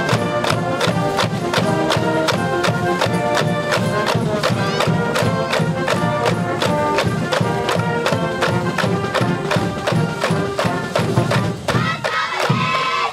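High school brass band in the stands playing a baseball cheer tune over a steady, even drum beat. Near the end the band breaks off and the cheering section bursts into a loud group shout.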